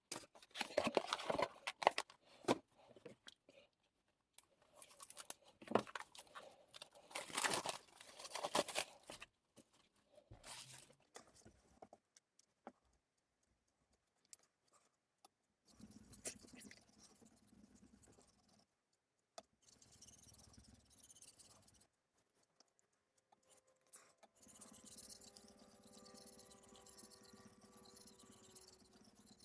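Knife blade being worked on a wet Suehiro Debado S 3000-grit whetstone: bursts of scraping and handling noise through the first nine seconds, then fainter, steadier rubbing.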